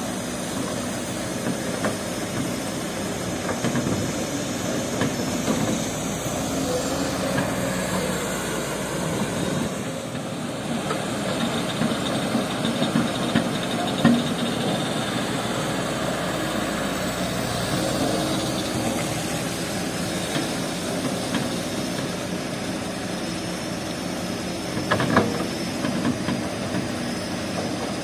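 Kobelco SK200 hydraulic excavator's diesel engine running steadily as it digs and loads river sand and gravel into a dump truck, with a couple of sharp knocks, about halfway through and near the end.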